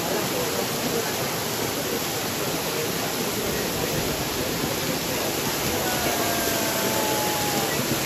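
Steady rush of a waterfall: an even, unbroken wash of falling water.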